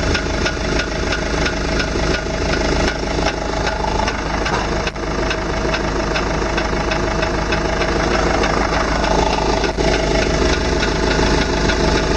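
VW Tiguan idling with light clicks and two sharper knocks from the front suspension, about five seconds apart, as the steering is turned to full lock. It is a half-plastic sounding knock that the owner takes for a ball joint.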